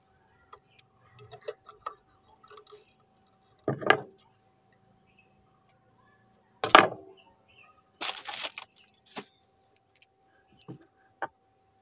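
Handling noises at a sewing machine: scattered small clicks and clinks as hands work the thread, over a faint steady hum. Two louder sharp sounds come about four and seven seconds in, and a short hiss a little after eight seconds.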